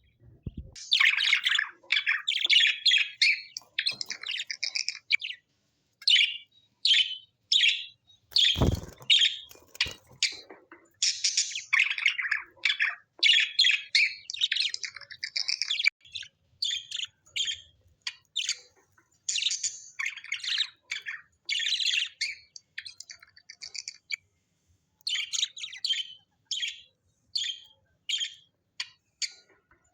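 Birds chirping and chattering in rapid clusters of short, high calls with brief pauses between them. A single knock sounds about nine seconds in.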